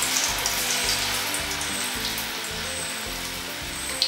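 Batter-coated soya chunks deep-frying in hot oil in an aluminium kadai: a steady sizzle as the chunks are dropped in, with a few sharper crackles near the end.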